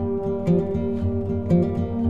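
Background music: acoustic guitar, plucked notes over a steady bass.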